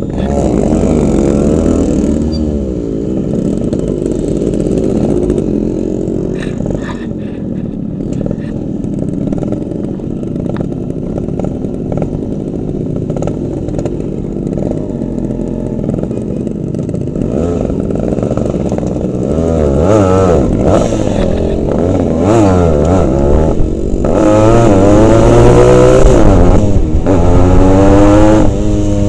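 Single-cylinder two-stroke Yamaha RX-series motorcycle engine being ridden, its revs rising and falling over and over with throttle and gear changes. The revs climb louder and higher in the last few seconds.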